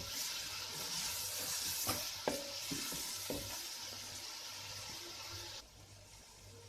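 Ginger, garlic and green chilli paste sizzling as it fries in hot oil and is stirred, with a spoon knocking against the pan a few times. The sizzle cuts off suddenly near the end.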